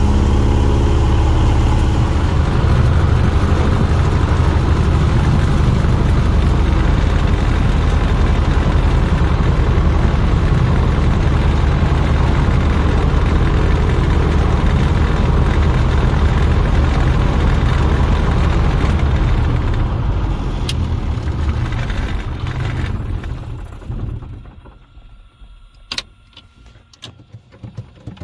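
Single piston engine and propeller of a PJC-2 Harlow heard from inside its cockpit, running steadily at a low-power taxi. About three-quarters through, the sound fades away, leaving a few light clicks.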